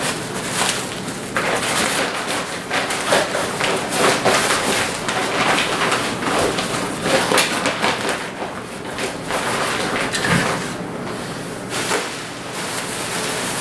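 Crinkling and rustling of packaging and nylon stuff sacks as gear is crammed into a bicycle seat bag, with a few soft handling thumps.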